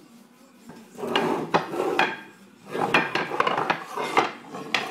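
Hardwood end-grain strips clattering and knocking against each other and the plastic pipes as they are laid down, in several rattling bursts starting about a second in.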